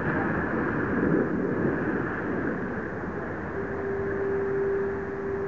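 Wind rushing and buffeting the microphone over the water. About three and a half seconds in, a steady single-pitched tone joins and holds for about two seconds.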